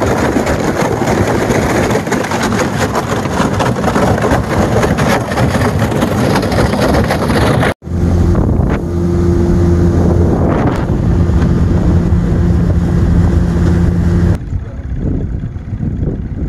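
A jon boat's outboard motor running at speed. For the first half the hull pushes through floating ice and slush with a loud, continuous rushing and crackling. The boat then runs over open water with a steady engine drone, which stops suddenly near the end and leaves quieter wind and water noise.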